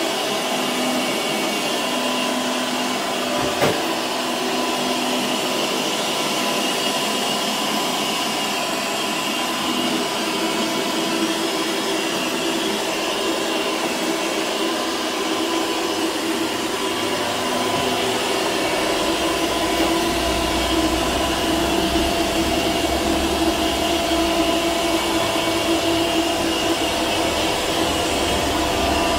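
Fuzoto robot vacuum cleaner running: a steady whir with a few steady tones. There is a single knock about three and a half seconds in, and a low rumble joins from about eighteen seconds on.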